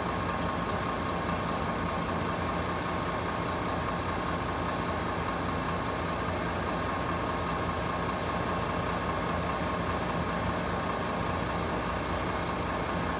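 Road vehicles idling: a steady low engine hum with a thin, steady high whine over it.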